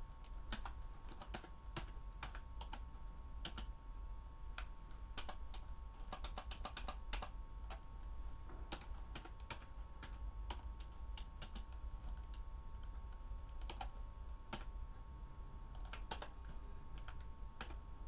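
Typing on a computer keyboard: irregular keystrokes with pauses, and a quick run of keys about six to seven seconds in, over a steady low hum.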